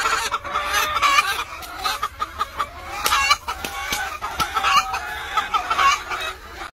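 Hen clucking on her nest in a run of short, wavering calls, a protest at a hand reaching in for her eggs; a few sharp taps sound alongside.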